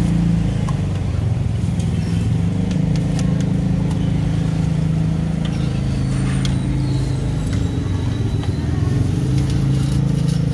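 A motor vehicle engine runs steadily nearby with a low hum whose pitch shifts slightly now and then. A few light clinks of utensils sound over it.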